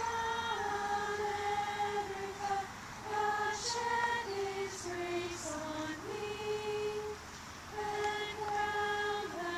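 A group of girls and young women singing together in unison, a slow melody of held notes.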